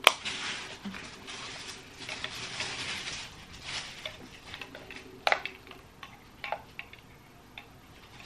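Hands handling a Philips Hue bridge's plastic power adapter and picking at the tie on its coiled cable: a sharp click at the start, then rustling and a few scattered clicks.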